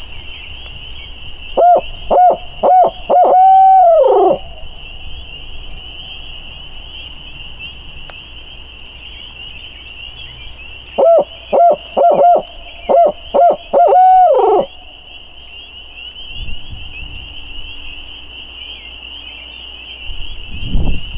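Owl locator call blown by mouth, hooting in two loud series about seven seconds apart. Each series is a few short hoots ending in a long, drawn-out falling note. It is meant to startle a roosting turkey gobbler into a shock gobble.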